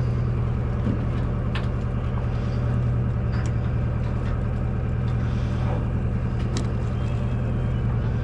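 Steady low drone of a party fishing boat's engine running, with a few light clicks.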